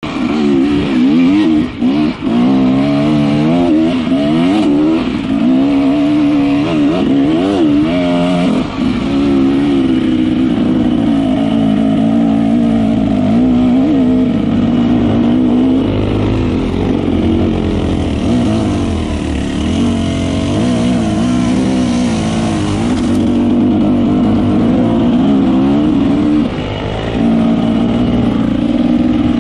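Off-road dirt bike engines running as they are ridden, the pitch rising and falling again and again with the throttle.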